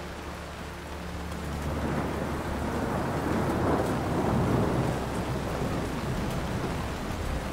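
Rain with a rolling rumble of thunder that swells to its loudest about halfway through and then eases.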